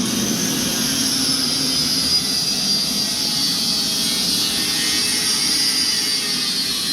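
Grinder running steadily with steel held against the wheel, as in a spark test: a loud, rushing grind with a high whine that sags slightly in pitch under load.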